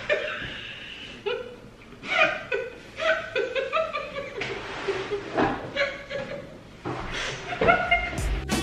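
Two women laughing uncontrollably in repeated bursts.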